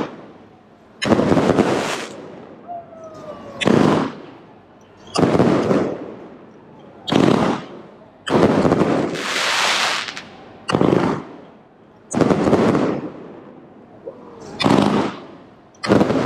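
Fireworks going off in a rapid series: about nine loud bangs, one every one to two seconds, each ringing briefly, one near the middle drawn out longer, with faint whistles between them.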